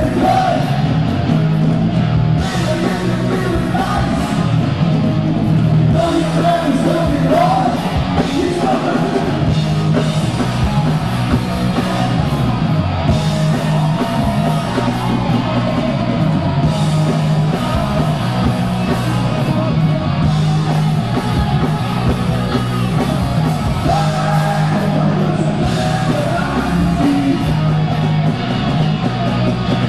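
Loud hard rock song: electric guitars, bass and drums with a shouted male lead vocal, playing without a break.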